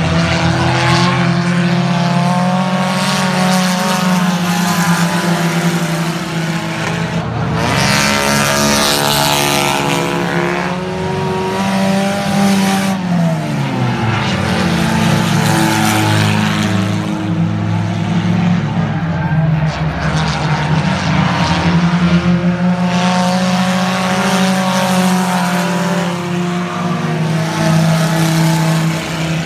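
Race car engines running hard as cars lap an oval track, the pitch climbing and dropping as they accelerate and pass. A car goes by with a falling pitch about 13 seconds in, and there is a rushing, noisier stretch around 8 seconds in.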